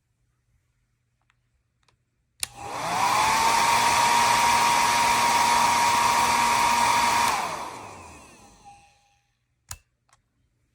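Conair Vagabond compact travel hair dryer switched on with a click. Its motor spins up in a rising whine to a steady airy whirr with a constant hum, runs for about five seconds, then is switched off and winds down with a falling whine. A second click comes near the end.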